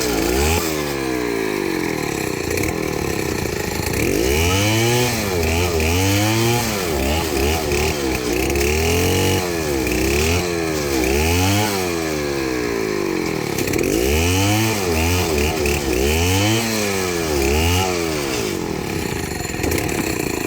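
Two-stroke chainsaw running hard while cutting a palm trunk. Its engine pitch rises and falls over and over, every second or two, as the chain bites in and the revs pick up again.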